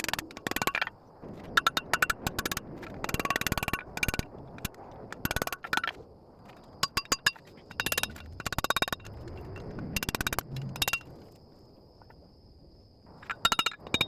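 Hammer blows ringing on metal in quick irregular runs, with quieter scraping between them.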